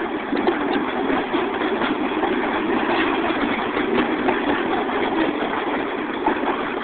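Short freight train hauled by two GP35 diesel locomotives going by: a steady, even rumble of diesel engines and steel wheels on the rails, with scattered light clicks.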